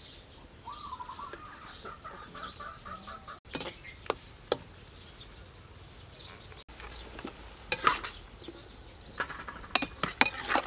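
Metal spatula scraping and clanking against a steel wok as a stir-fry is tossed and scooped into a metal bowl, the sharp clanks loudest and most frequent near the end. A bird calls with a quick run of repeated notes in the first few seconds.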